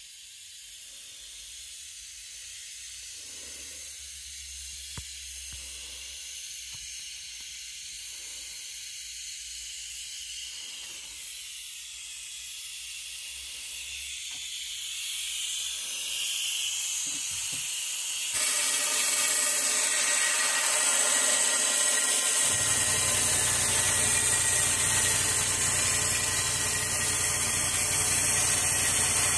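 Air-fed spray gun hissing as its long injection lance sprays Dinitrol wax inside a chassis rail. The hiss gets louder about two-thirds of the way through, and a low hum joins soon after.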